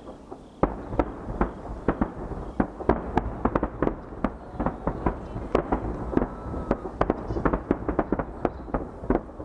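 Rapid barrage of aerial firework shells bursting: dozens of sharp bangs, several a second, over a continuous low rumble of reports.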